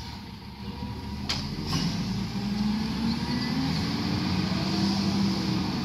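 Iveco Stralis garbage truck's engine running, growing louder and rising a little in pitch about two seconds in as the truck pulls away, then holding steady.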